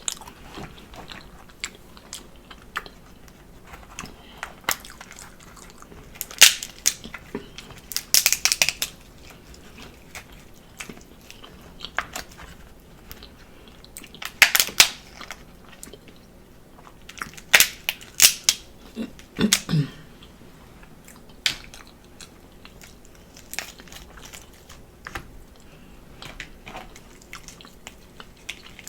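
A person eating a seafood boil of lobster tails, crab legs and mussels: chewing and wet mouth clicks, with a handful of louder sharp bursts scattered through.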